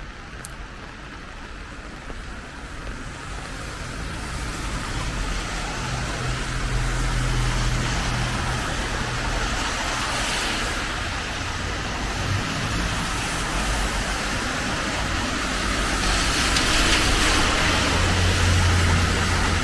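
Road traffic passing on a wet street: tyre hiss with an engine rumble underneath, swelling as vehicles go by, loudest around eight seconds in and again near the end.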